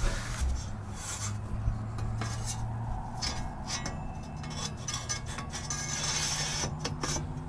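Powder-coated metal fire-pit panels scraping and rubbing against each other as their slots are slid together, with light knocks and taps of metal along the way.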